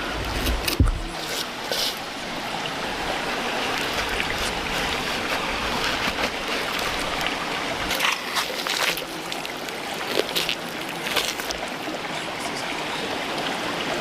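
Chicken sizzling over a charcoal fire: a steady hiss broken by scattered crackles and pops.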